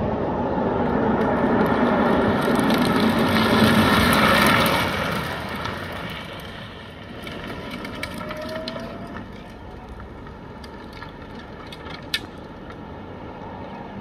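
Rimac Nevera electric hypercar going by at speed: a rush of tyre and wind noise with a faint electric-motor whine that swells to a peak about four to five seconds in, then fades away. A single sharp click comes near the end.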